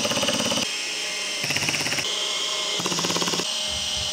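Cordless drill-driver running in spells, driving screw-in dowels into a particleboard panel, with spells of rapid, even ratcheting clicks typical of the torque clutch slipping as each dowel seats.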